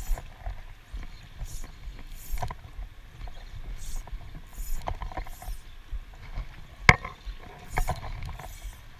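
Close wading and handling sounds: water moving around the legs and a low rumble, short swishing strokes as fly line is stripped in by hand, and a sharp click about seven seconds in.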